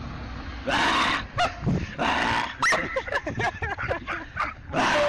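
Animals calling: a run of short, loud cries broken by noisy bursts.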